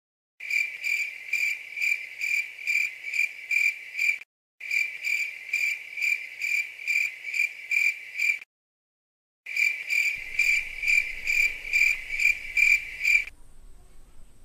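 Cricket chirping sound effect: a high, even chirp repeating about three times a second, cut off cleanly twice by short dead-silent gaps, and stopping a second before the end.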